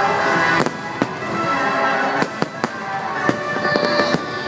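Aerial fireworks shells bursting in a string of sharp bangs, about nine over a few seconds, some in quick succession, with orchestral show music playing underneath.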